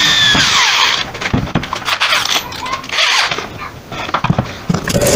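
Corded electric drill running at speed, its whine falling away as it spins down about a second in, followed by clicks and knocks of the drill being handled and set up for the next hole.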